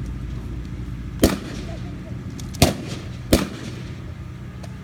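Gunfire from blank-firing weapons in a mock battle: one sharp shot about a second in, then two more in quick succession a little past the middle.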